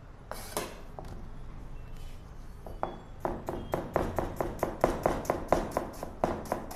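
Cleaver shredding cabbage on a plastic cutting board: a few separate cuts at first, then from about three seconds in, quick even chops of the blade on the board, about four to five a second.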